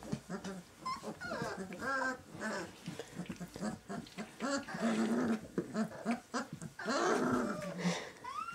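A litter of 19-day-old Great Dane puppies vocalizing as they play together, many short high calls overlapping one another, with a rising cry near the end.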